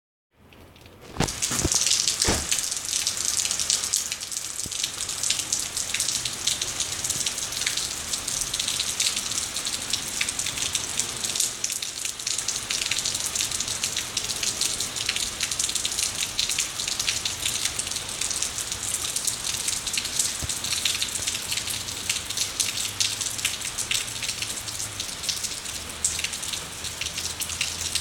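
Heavy rain falling steadily, with many individual drops ticking on hard surfaces. A few sharp clicks come just as it starts, about a second in.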